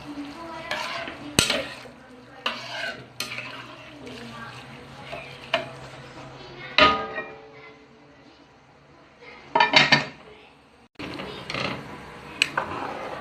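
Utensil stirring and clinking against a metal cooking pot: scattered sharp knocks, one ringing metal clink about seven seconds in, and a quick run of clinks near ten seconds.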